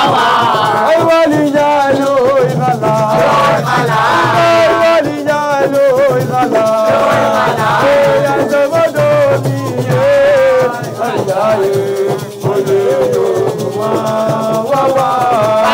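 Music: voices singing a melody over the rattle of shakers and other percussion.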